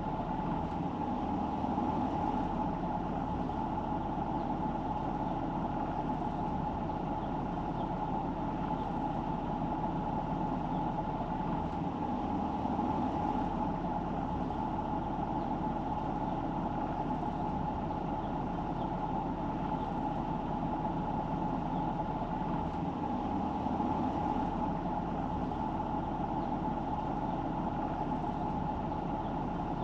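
A car driving: steady engine and tyre road noise with a constant hum.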